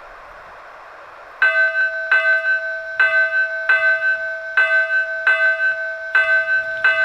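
Steam-locomotive bell sound from a model train locomotive's sound system, ringing about a second and a half in with a steady swinging ding-dong rhythm, about three strikes every two seconds. Before it, a soft steady hiss.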